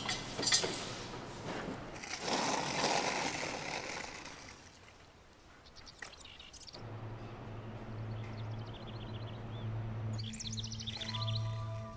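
Small birds chirping in quick trilled phrases over a steady low hum that starts about seven seconds in. A rushing noise at the start fades out by about five seconds, and a few held musical notes come in near the end.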